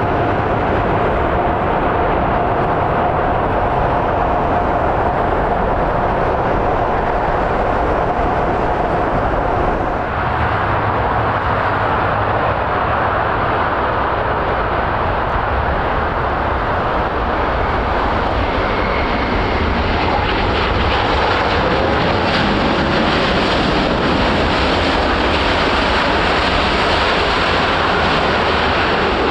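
Airbus A380 four-engine jet airliner after touchdown: its engines give a steady loud rushing noise with a high whine on top. About ten seconds in the whine drops away, and the rushing engine noise of a second A380 landing follows.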